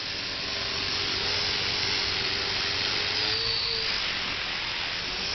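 Align T-Rex 250 electric RC helicopter in flight: the steady whine of its electric motor and spinning rotors, its pitch rising a little for a moment just past the middle.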